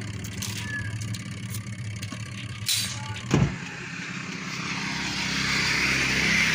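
An electric motor humming steadily, with a sharp click and then a knock about three seconds in. After that a rushing noise swells.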